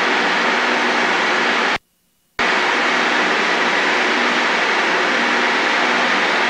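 Steady drone of a light single-engine propeller plane's engine and rushing air, heard inside the cockpit on final approach. The sound cuts out completely for about half a second about two seconds in, then resumes unchanged.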